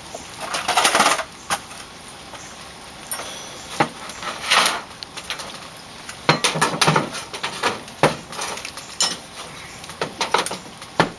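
Hand work on a door installation: irregular knocks, clinks and scrapes of tools and metal hardware being handled. There are three longer scraping sounds, one about a second long near the start, one about four and a half seconds in, and one between six and seven seconds.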